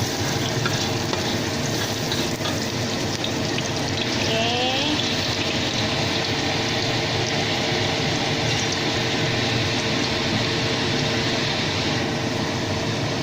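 Oil frying in a pan, a steady sizzle, with a steady low hum underneath.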